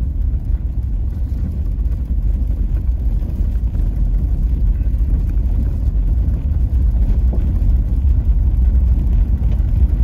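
Steady low rumble of a vehicle driving on a wet dirt road, heard from inside the cabin: engine and tyre noise with no change in speed.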